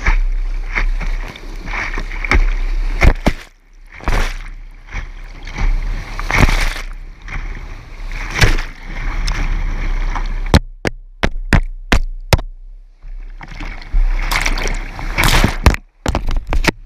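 Big-water whitewater rapids rushing and splashing over a kayak's bow-mounted camera, with loud splashes of paddle strokes and waves hitting the deck every second or two. After about ten seconds the sound drops away for a few seconds, broken by sharp clicks, then the rushing and splashing return.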